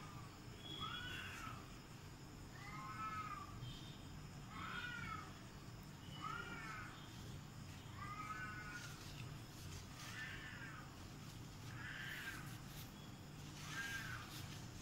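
A cat meowing over and over: about eight short meows, each rising then falling in pitch, one every two seconds or so.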